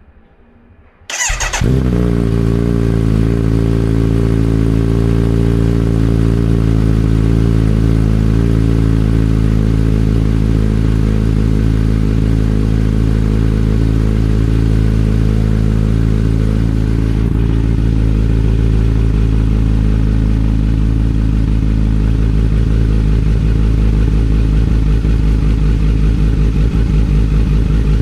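2025 Kawasaki Z900 SE's inline-four engine cold-started about a second in, catching at once and settling into a steady idle in neutral. It is being warmed up so the oil thins before draining.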